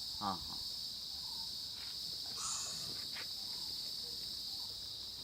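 Steady chorus of crickets trilling without a break. A short call falls steeply in pitch near the start, and faint higher chirps come in about every three seconds.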